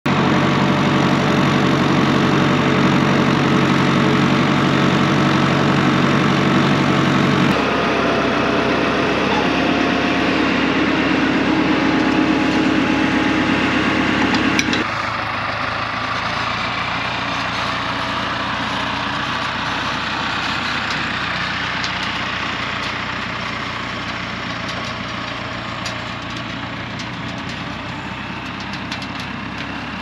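Farm tractor engine running at a steady speed while towing a grain auger. It is loud and low at first, then changes abruptly twice, about seven and fifteen seconds in, and is quieter and further off after the second change.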